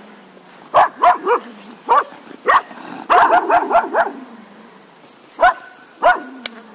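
Cocker spaniel barking in short, sharp barks: a few single barks, then a quick run of about six barks about three seconds in, then two more spaced barks near the end.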